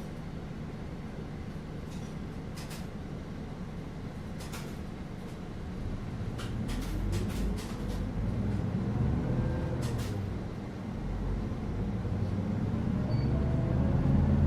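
Bus heard from inside the cabin: low engine rumble and road noise. About six seconds in it grows louder, with the engine note climbing as the bus speeds up. A few short clicks and rattles come through.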